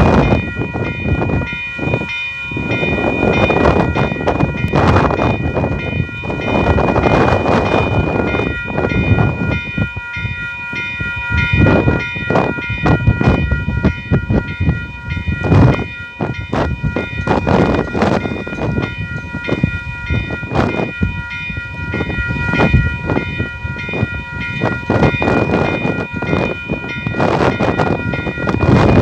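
Railway level-crossing warning bell ringing steadily while the crossing is active for an approaching coal train. Underneath it, a loud, uneven rushing noise swells and fades, broken by short sharp knocks.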